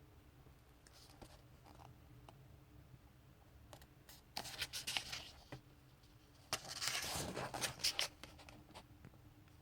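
Pages of a graphic novel being turned by hand: two bursts of paper rustling, the second longer and louder, over a faint steady hum.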